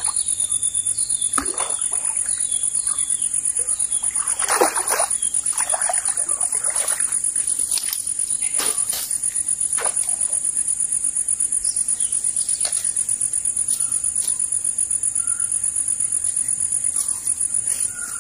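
A high, fast-pulsing insect trill runs steadily throughout. A few short splashing noises around the middle come from a barramundi being landed at the water's edge.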